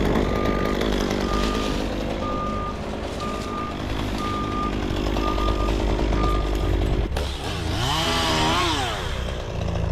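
Heavy diesel machinery running with its reversing alarm beeping steadily at one pitch; the beeping and the engine rumble stop about seven seconds in. A chainsaw then revs up and back down.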